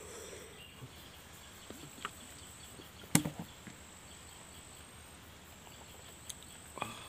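Quiet outdoor ambience with a faint, high, steady insect tone for the first three seconds or so, and one sharp knock about three seconds in.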